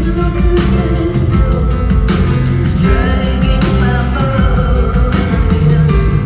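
Live concert music: a full band playing with a woman singing, recorded from the audience.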